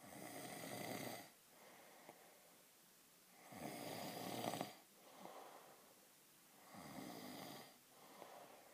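A man snoring in his sleep: three snores about three and a half seconds apart, each followed by a softer breath.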